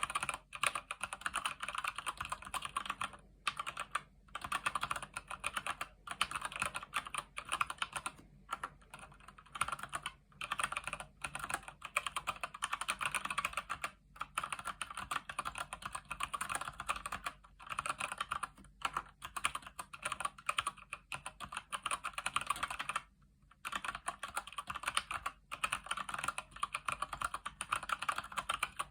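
Fast continuous typing on a Keychron C1 mechanical keyboard with Gateron Brown tactile switches: a rapid stream of key clacks, broken by short pauses a few times.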